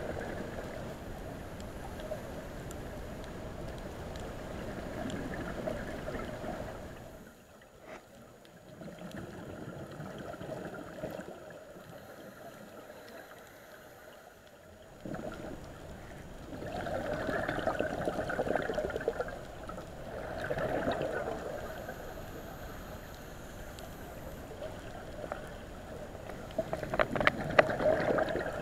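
Scuba regulator breathing heard underwater: exhaled air bubbles out in gurgling bursts a few seconds apart over a steady underwater hiss, with a quieter stretch in the middle.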